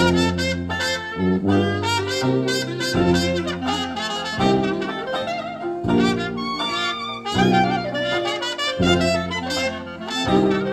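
Jazz-style instrumental music led by horns over a bass line, played back on KEF R7 floor-standing hi-fi loudspeakers.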